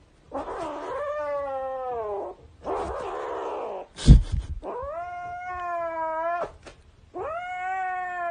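A cat yowling: three long drawn-out cries, the first sliding down in pitch, with a harsh, noisy stretch after the first. A single loud thump about four seconds in.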